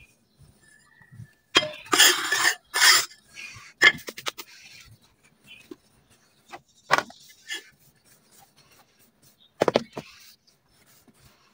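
Red dirt being handled: a few short bursts of gritty scraping and crumbling, with scattered sharp clicks and crackles between them.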